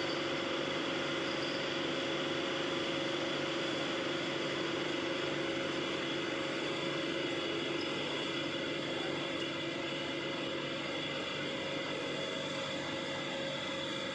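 Homemade model electric locomotive running with a steady whirring hum, with a few steady tones held under it.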